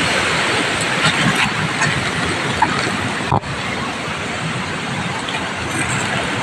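Fast river current rushing steadily over rocks. It cuts out for an instant about three and a half seconds in, then carries on a little quieter.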